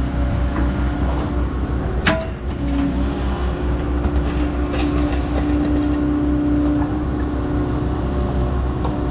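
Hyundai HX140AL excavator's diesel engine running steadily at full throttle, quiet for a machine of its size. There is a sharp click about two seconds in, and a steady higher tone joins the engine from about three to seven seconds in.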